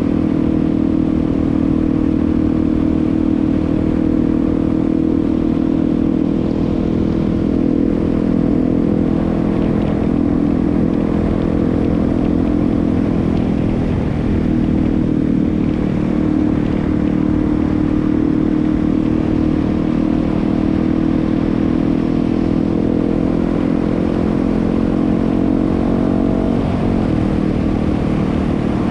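Yamaha WR250R's single-cylinder four-stroke engine running steadily under way, its pitch dipping briefly twice, about halfway through and near the end.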